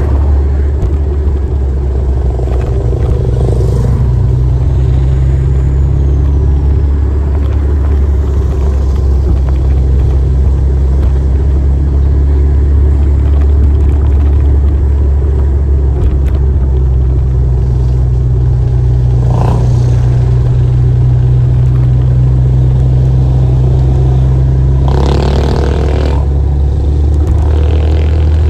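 Motorcycle ride through town traffic: a steady low rumble of engine and wind on the microphone, with other vehicles passing, one louder near the end.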